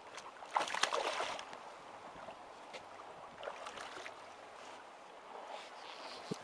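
A hooked pollack splashing and thrashing at the water's surface, a loud burst of splashing about half a second in, then softer water sounds and a single knock near the end.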